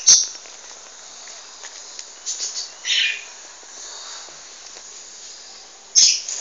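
Outdoor ambience of a few short bird chirps over a steady high hiss of insects. Two sharp knocks stand out, one at the very start and one about six seconds in.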